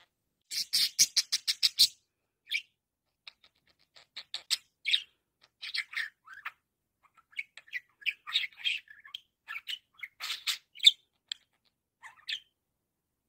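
Budgerigar chirping and warbling: a quick run of about ten sharp chirps near the start, then scattered chirps and chattering warble notes that stop shortly before the end.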